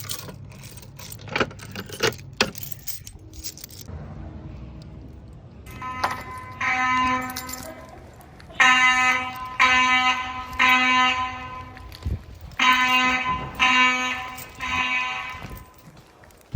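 Fire alarm horn sounding during a test: a buzzy, harsh tone that starts about six seconds in and then pulses in groups of three, a pause, then three more, the temporal-three evacuation pattern. A few sharp knocks and clicks come before it in the first seconds.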